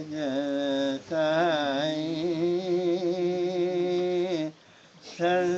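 A man's solo voice singing a devotional manqabat in long, drawn-out notes that waver around a steady pitch. There is a short pause for breath about four and a half seconds in.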